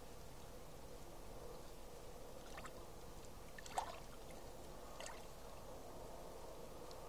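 Faint trickling and lapping of shallow seawater among seaweed-covered shore rocks as the tide comes in, with three small drips, the sharpest near the middle.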